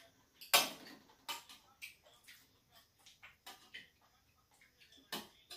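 Close-up eating noises at a meal of boiled octopus: a run of short, irregular clicks and smacks, about two or three a second, with a louder, longer one about half a second in.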